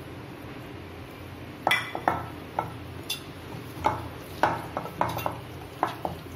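Steel mixing bowl clinking and knocking as chicken drumsticks are mixed with a spice marinade by hand. There are about ten irregular knocks, starting about a second and a half in.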